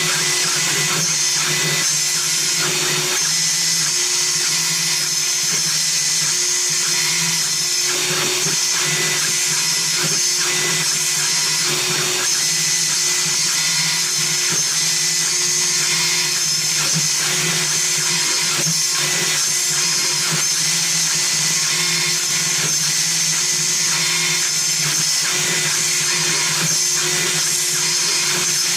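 Small CNC milling machine's spindle running steadily, a high-pitched whine with scratchy cutting noise as it mills a wooden keycap.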